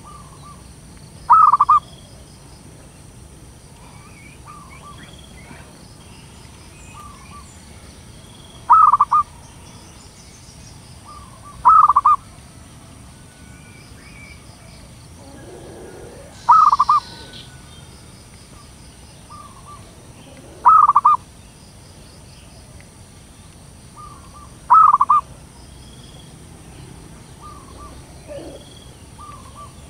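Zebra dove (perkutut) cooing: six short loud bursts of rapid coos, a few seconds apart, with fainter short coos between them.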